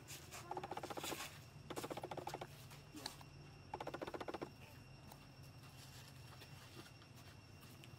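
Three short bursts of rapid, evenly pulsed animal chattering, each under a second long, over a faint steady background.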